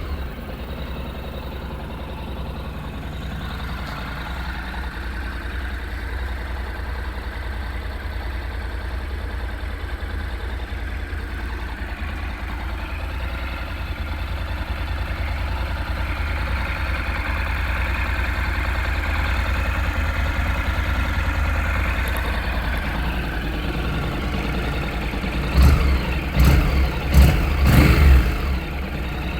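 Honda NC700S's 670 cc parallel-twin engine idling steadily through its stock exhaust, then revved in several quick throttle blips near the end.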